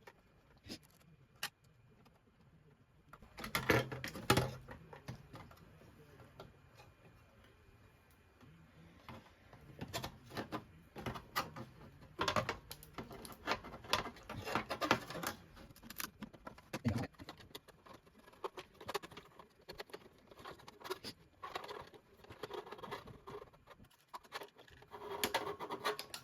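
Scattered clicks, taps and rattles of a screwdriver and small metal parts being handled as the hard drive of a Pace Sky+ box is unscrewed and worked free of its mounting, in bunches with short pauses between.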